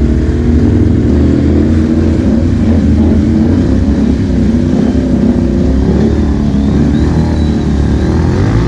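ATV engine running under load through a muddy rut, its pitch wavering up and down with the throttle and rising near the end.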